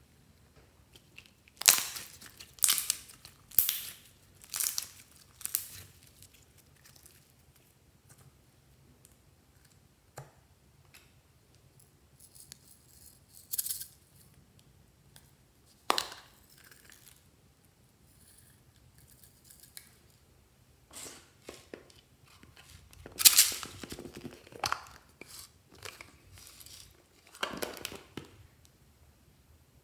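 Crinkling, tearing handling noises from small plastic slime containers being opened and their add-ins worked into slime, in scattered short bursts. Near the start there is a run of five sharp rustles about a second apart, with a denser cluster later on.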